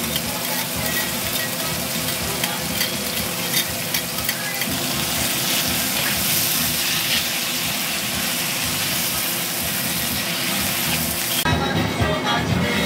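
Diced raw chicken sizzling in a hot oiled wok as it is stirred and turned with metal tongs: a steady frying hiss with small clicks of the tongs. The sizzle cuts off about eleven and a half seconds in.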